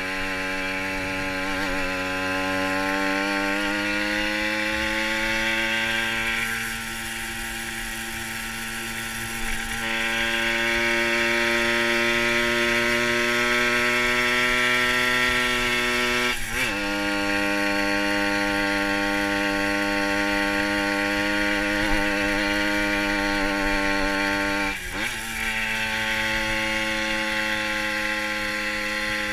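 Fantic TI sports moped's small two-stroke engine buzzing under way, its note climbing slowly as the moped gathers speed. The pitch drops sharply about 17 seconds in and again about 25 seconds in, climbing again after each drop.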